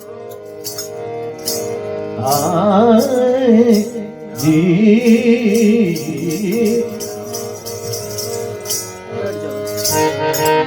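Gujarati devotional bhajan singing: a male voice in a wavering, ornamented melodic line enters about two seconds in, over a steady sustained instrumental accompaniment, with regular jingling strokes of manjira hand cymbals.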